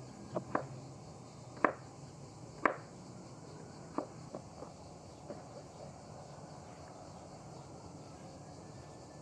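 Kitchen knife slicing vegetables on a wooden cutting board: a handful of sharp knocks of the blade on the board in the first five seconds, the loudest about two and a half seconds in. The knocks stop after that, leaving only a faint steady outdoor background.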